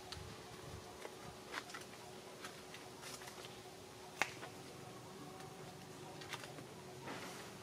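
Faint scattered clicks and soft smacks from a newborn macaque suckling at its mother's nipple, with one sharper click about four seconds in, over a faint steady hum.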